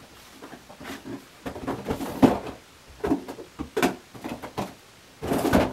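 Rummaging in a bathroom cabinet for a tub of shaving soap: irregular knocks, clicks and rattles as things are moved about, with a louder, half-second rush of noise near the end.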